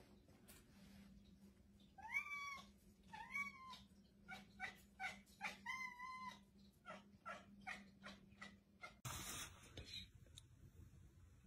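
A domestic cat meowing three times, each call rising then falling in pitch, with a run of short chirps about twice a second between and after the meows. A brief burst of noise about nine seconds in.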